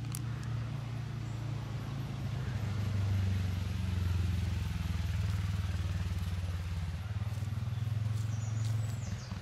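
Valtra T 214 tractor's six-cylinder diesel engine running steadily under load while pulling a plough; it grows louder a few seconds in and dips briefly near the end.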